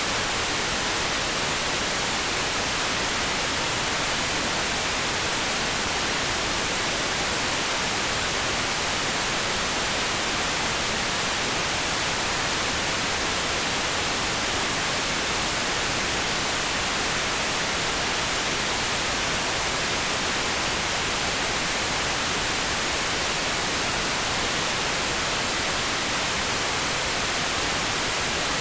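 Steady synthetic noise played as a pink-noise sleep track: an even, unbroken hiss that never changes, weighted toward the higher end.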